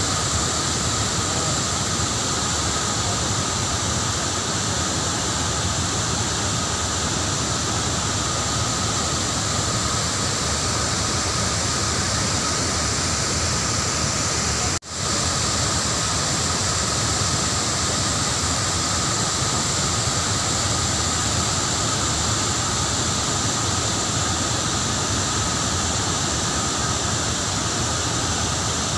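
Floodwater pouring down a dam spillway in full flow and churning into the river below: a steady, loud rush of water. It cuts out for a split second about halfway, then carries on.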